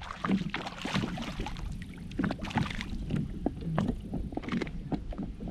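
Irregular splashing, clicks and knocks of water and gear around a fishing kayak while a hooked fish is reeled in.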